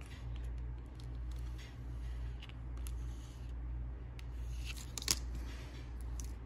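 Plastic card scraper dragged across a steel nail stamping plate, scraping purple and blue polish over the image, with a sharp click about five seconds in, over a steady low hum.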